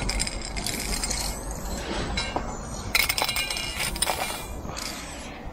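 Aerosol spray paint cans clinking and rattling against each other as they are handled, in several short bursts.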